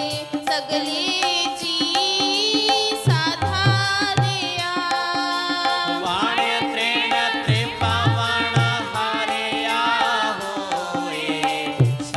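Sikh shabad kirtan music. Tabla keeps a repeating cycle, with a cluster of deep bass-drum strokes returning about every four and a half seconds, under held notes and a wavering melody line.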